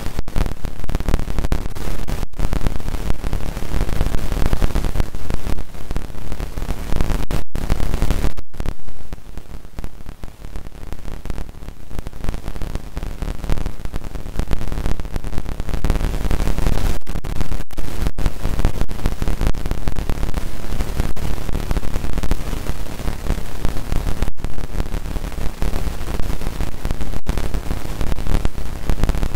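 Loud, steady static hiss with a low hum, the noise of a poor audio feed. It is broken by several brief dropouts, around 8 s in and again a few times late on.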